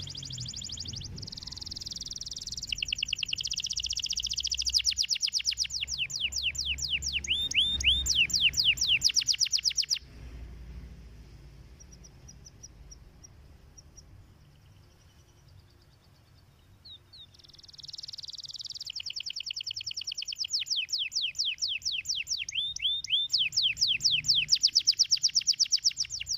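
Domestic canary singing: a long phrase of fast, evenly repeated trilled notes that stops suddenly about ten seconds in, a quieter gap with a few faint notes, then a second long trilling phrase from about seventeen seconds on.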